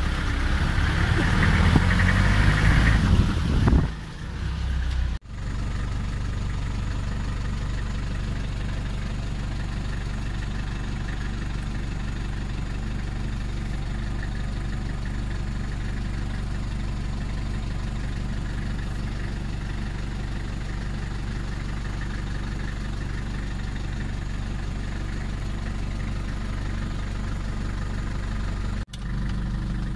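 A vehicle engine idling steadily at an even pitch. The first few seconds hold a louder burst of mixed noise that cuts off.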